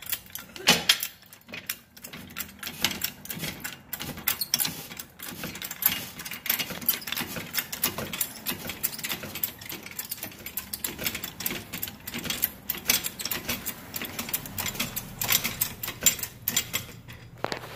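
Hydraulic floor jack being pumped by its handle to raise a golf cart, the handle and pump linkage clicking and rattling rapidly and without a break.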